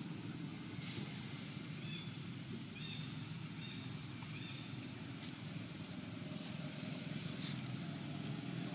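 Steady low background rumble, with a few faint, short high chirps about two to three seconds in.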